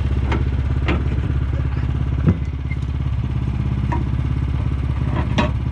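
Engine idling steadily with an even pulse, with a few scattered knocks and clunks; the loudest comes about two seconds in.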